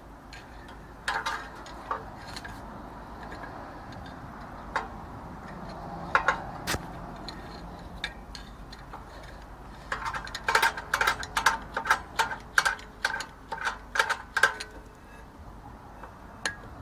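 Tool clicking the parking-brake shoe adjuster's star wheel through the rear brake rotor of a Nissan Elgrand E51: metal-on-metal clicks that ring in the rotor. A few scattered clicks come first, then a quick run of about four clicks a second from about ten seconds in, stopping near the end.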